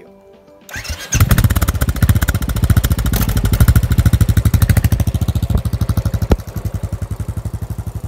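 Motorcycle engine starting up about a second in, then running with a rapid, even firing beat. It drops in level near the end.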